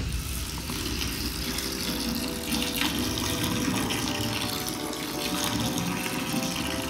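Carbonated soda fizzing and rushing steadily, with background music.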